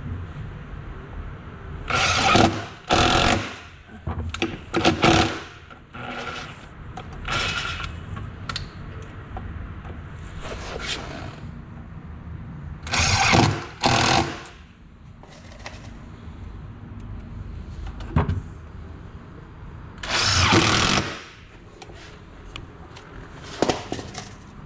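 Makita cordless impact driver driving screws into a metal drawer slide rail on a cabinet panel. It runs in about seven short bursts, each under a second, with pauses between them.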